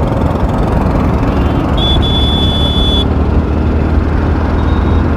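Motorcycle riding along a road, its engine and road noise running steadily, with a high steady beep lasting about a second near the middle.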